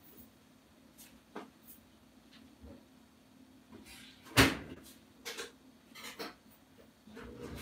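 Scattered knocks and clicks of things being handled in a kitchen, the loudest a single sharp knock about four and a half seconds in, with two or three smaller ones after it. A steady low rushing noise starts near the end.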